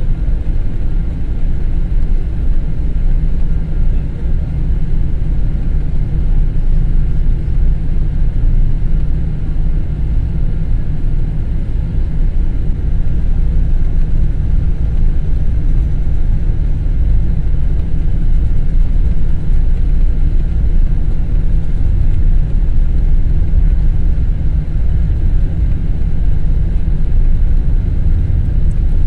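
Boeing 777-200ER taxiing, heard from inside the passenger cabin: a steady low rumble.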